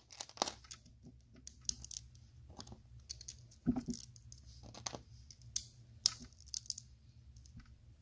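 LEGO plastic pieces clicking and tapping as tiles are pressed onto the brick structure and handled: a series of short, sharp, irregular clicks.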